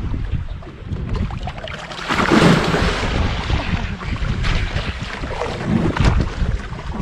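Wind buffeting the microphone over open water, with waves sloshing. There is a louder rush of water about two and a half seconds in.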